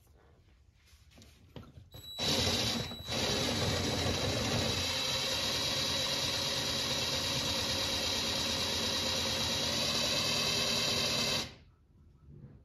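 Transmission fluid pump running steadily, pushing Toyota WS fluid through a hose into the hybrid transaxle's fill hole to top it up. It starts about two seconds in, breaks off for a moment just after, then runs evenly with a thin high whine until it cuts off suddenly near the end.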